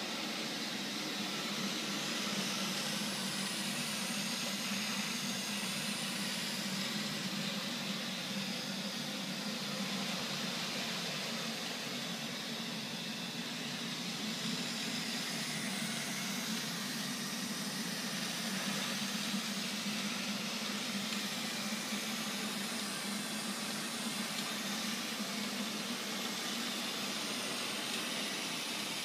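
Neato robot vacuum cleaner running steadily, its suction fan and brush giving an even rushing hiss over a low hum.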